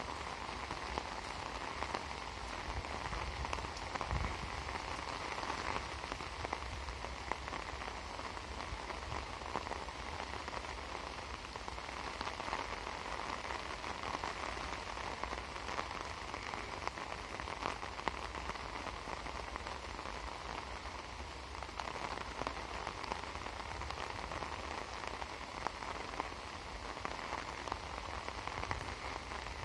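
Heavy rain falling steadily, a dense patter of drops on an umbrella overhead and on the surrounding leaves.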